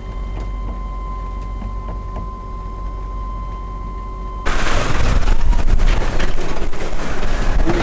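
Wind buffeting the microphone aboard a sailboat, a steady low rumble with a thin steady hum over it. About four and a half seconds in, it jumps abruptly to louder crackling rush of wind and water.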